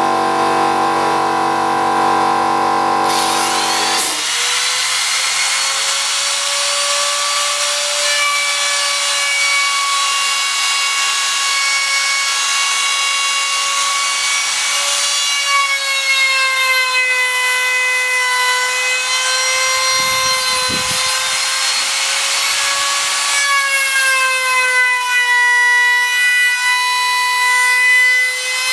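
Handheld trim router with a flush-trim bit running at high speed: a steady high whine over the rasping of the bit cutting wood, its pitch sagging slightly at times under load. The router sound starts about four seconds in, after a steady lower hum.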